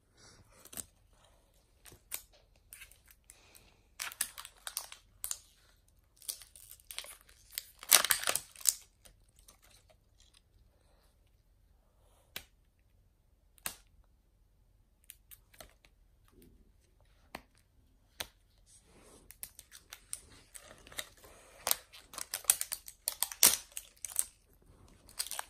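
Wrapping of an LOL Surprise ball being peeled and torn open by hand: rustling, crinkling and tearing in scattered bursts. The loudest burst comes about eight seconds in, there is a quieter stretch in the middle, and quick crinkling near the end.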